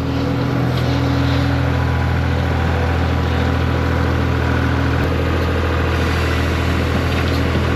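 Skid steer's engine running steadily at constant speed.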